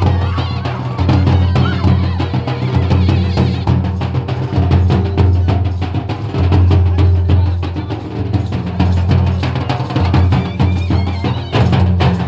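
Nagpuri folk dance music: a shehnai melody over fast, dense strokes from large hand-carried drums, with a steady low hum beneath.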